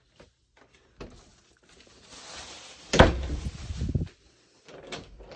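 A door pushed open by hand: a few small clicks, a rushing scrape building up, then a sharp knock about three seconds in with a short low rumble after it.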